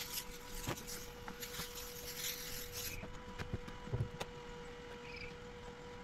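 Irregular light knocks and clicks, with a hiss for about the first three seconds over a faint steady hum.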